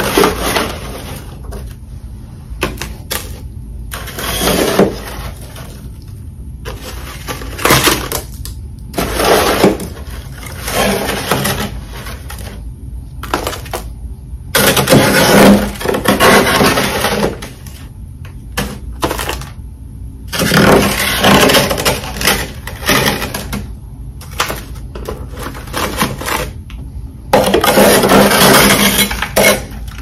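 Metal spatula scraping and breaking thick humidifier-built frost off a freezer shelf, in repeated rough scrapes of one to two seconds each with short pauses between.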